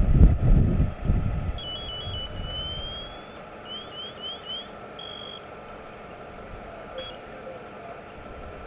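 Fire-scene vehicle noise: a loud low rumble for the first second and a half, then a steady engine-like hum, with a run of short high electronic tones over it — a quick alternating two-note pattern, a slow rising glide, four fast rising sweeps and a couple of brief steady beeps.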